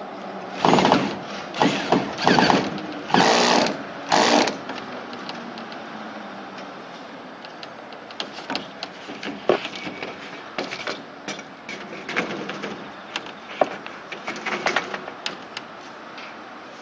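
Work on a deck roof panel: five loud scraping or rattling noises in quick succession in the first few seconds, then scattered light knocks and clicks.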